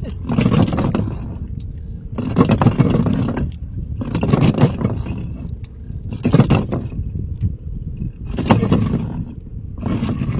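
Nylon fishing handline being hauled in hand over hand across a wooden boat's side, a scraping swish with each pull, about one every two seconds, over a low steady rumble.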